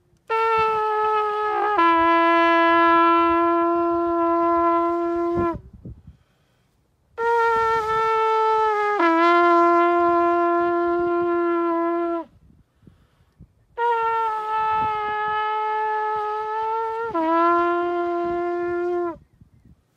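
A long, twisted horn shofar blown in three long blasts of about five seconds each, with short breaths between them. Each blast starts on a higher note and drops to a lower one partway through.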